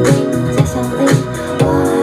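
Pop dance music with a steady beat, bass and keyboard chords.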